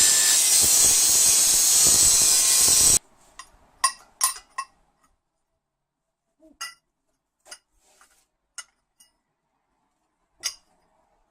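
A power cutting tool cutting through steel pipe, a loud steady hiss-like noise that stops abruptly about three seconds in. After it, a scattered series of sharp metallic clinks and knocks as the cut steel pipe pieces are handled and set down.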